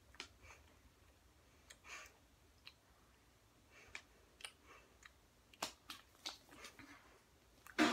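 Faint, scattered clicks and ticks in a quiet small room while a jelly bean is being eaten, then a short voice sound near the end.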